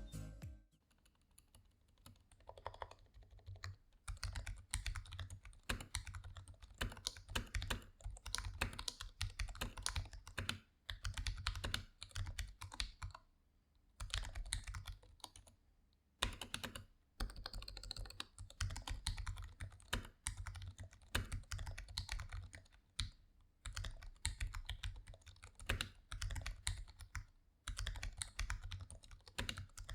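Typing on a mechanical keyboard: runs of quick keystrokes, each a sharp click with a low thud beneath it, broken by a few short pauses.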